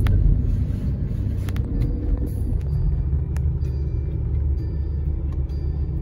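Car cabin noise while driving: a steady low rumble of tyres and engine, with a few faint clicks.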